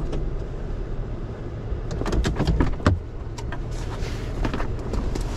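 Steady low rumble of a Chevrolet pickup's cab with the engine running, with a quick run of sharp clicks and rattles about two seconds in and lighter clicks after, as items are handled in the cab.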